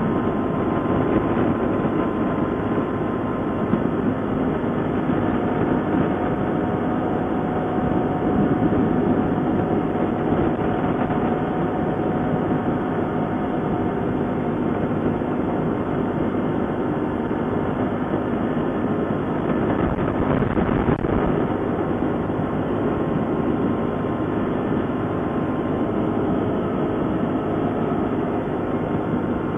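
ATV engine running steadily while being ridden, a dense even rumble with no breaks.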